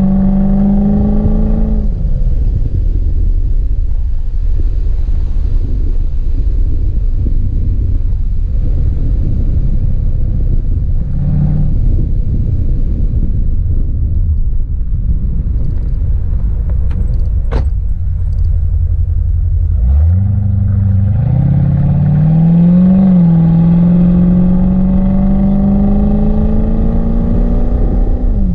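Chevrolet C4 Corvette V8 engine running: its revs fall early on and it settles into a low rumble. About two-thirds through, the revs climb steeply, dip briefly, then rise slowly again before falling off at the very end.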